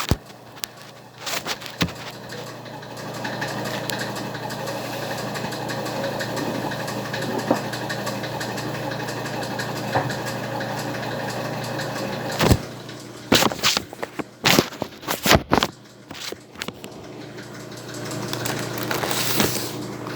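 Electric mixer motor running steadily while beating chocolate cake batter. About twelve seconds in, the steady running gives way to a run of sharp knocks and clatters.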